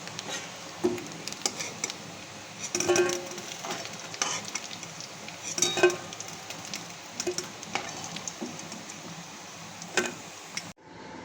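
Marinated chicken pieces sizzling as they deep-fry in vegetable oil in a kadai, with repeated sharp clinks and scrapes of a metal spoon against the pan as the golden-brown pieces are lifted out.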